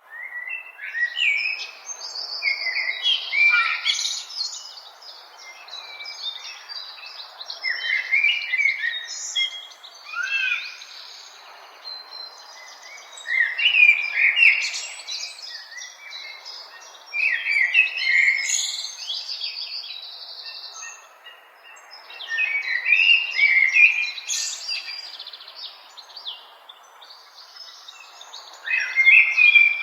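Birds chirping and singing, many short overlapping calls and warbles coming in bursts every few seconds, over a faint steady background hiss.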